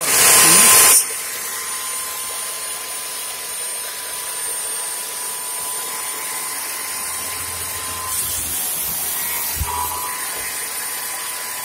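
Electric saw motor running steadily with a constant whine, after a loud rushing burst in the first second. A single knock comes near the end.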